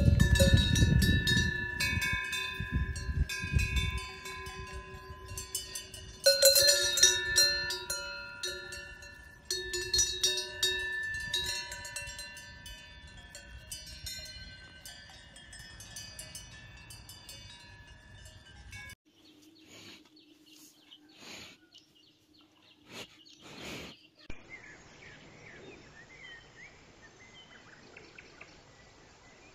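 Several cowbells clanking and ringing together at different pitches as grazing cows move, fading away by about two-thirds of the way through. After a cut, faint bird chirps near the end.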